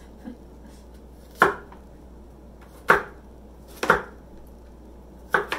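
Kitchen knife slicing ripe persimmons, the blade knocking down onto a cutting board in four sharp knocks spaced a second or so apart, the last two doubled.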